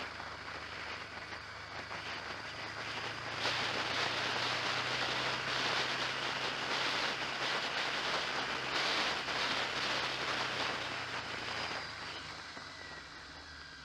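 Road vehicle on the move, heard onboard: a steady rush of wind and road noise over a low, even hum. The rush swells about three and a half seconds in and eases off near the end.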